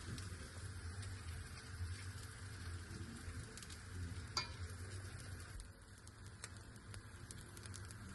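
Pancake batter sizzling in a hot buttered frying pan: a steady soft hiss with fine crackling, and one sharp click about four seconds in.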